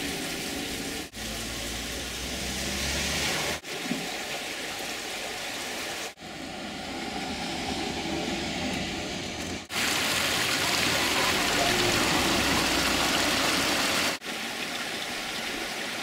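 Short outdoor recordings cut together, the background changing abruptly every two to four seconds. At the start, water splashes from a chute onto a waterwheel. In the middle, a small passenger bus drives by.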